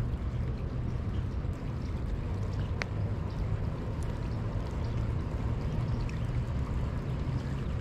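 Steady low rumble of wind on the microphone, with one sharp click about three seconds in.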